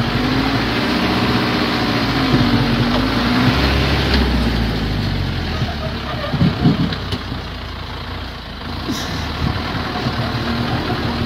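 ZIL-131 truck's V8 engine running under load, its pitch rising and falling as the throttle is worked over rough ground, with a few sharp thumps about six and a half seconds in.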